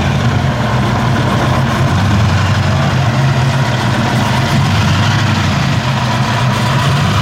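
V8 muscle car engine idling steadily.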